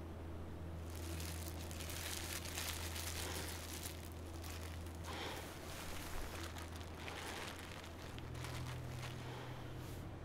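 Irregular rustling and crunching starts about a second in and carries on over a steady low drone.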